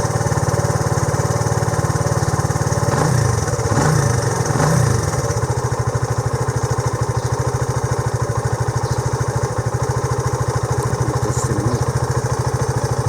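Honda CB125JX motorcycle engine idling steadily, blipped up in revs three times in quick succession about three to five seconds in. It has just been fitted with a new crankshaft after a failed crank bearing and runs without the bearing noise.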